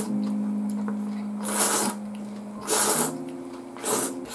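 A person slurping ramen noodles from chopsticks: about four sharp, loud slurps a second or so apart.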